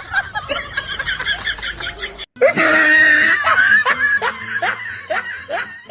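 Laughter in quick repeated ha-ha pulses. About two seconds in it cuts off suddenly and a louder laugh takes over.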